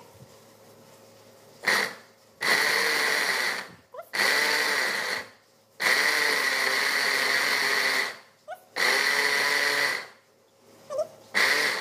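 Small electric food chopper run in pulses, whirring for one to two seconds at a time about six times with short pauses between, chopping red curly chillies into a paste.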